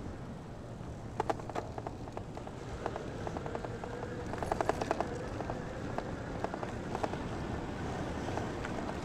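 Outdoor background rumble with scattered clusters of light, quick clicks and rattles, the densest about four to five seconds in.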